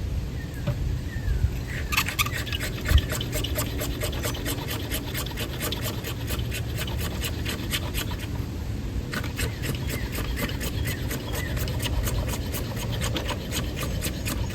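Pocket-knife blade scraping a resinous pine knot (fatwood) into fine shavings: quick, even rasping strokes about five a second, in two runs with a short pause in between.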